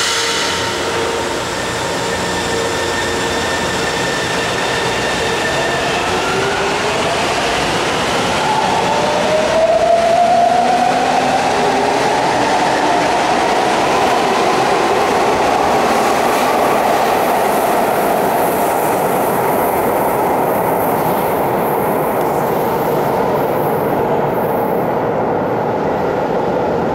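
São Paulo Metro G-fleet electric subway train pulling out of the station: the traction motors' whine rises in pitch as it accelerates over the first dozen seconds, then settles into a steady running noise of the cars passing on the rails.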